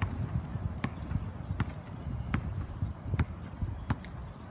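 Footsteps on asphalt, a sharp click about every three-quarters of a second, over a low rumble of wind on the microphone.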